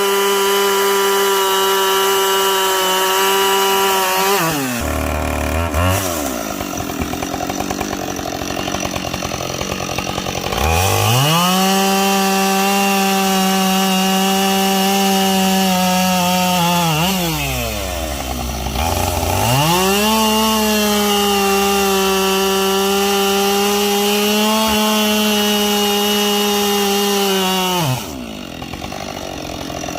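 Two-stroke chainsaw bucking logs, held at full throttle through cuts. It drops back to idle about five seconds in, revs up again around eleven seconds, dips briefly near eighteen seconds, runs flat out again, and falls to idle near the end.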